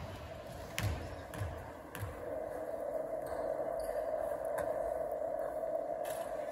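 A basketball bounced three times on a hardwood gym floor, about half a second apart, as a shooter dribbles at the free-throw line; then a steady hum in the gym.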